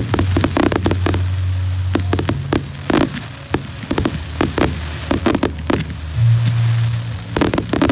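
Fireworks display: a rapid, irregular string of bangs and crackles as shells and ground effects burst.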